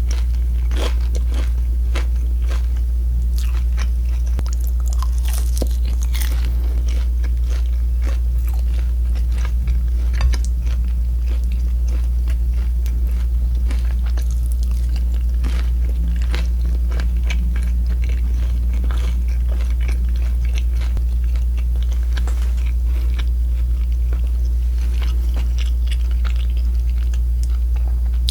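Close-miked biting, crunching and chewing of crispy fried pork, many sharp crunches one after another, over a steady low hum.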